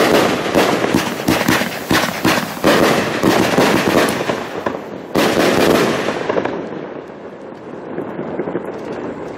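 A 100-shot fireworks cake (Zena 'Asiatic Cheetah') firing its last shots in quick succession, launches and shell bursts overhead blurring into dense bangs. A final volley comes about five seconds in, then the firing stops and the sound dies away.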